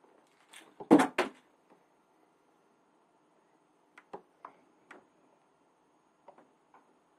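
A few short clicks and taps over a faint steady background tone. The loudest is a quick double click about a second in; softer single clicks come later.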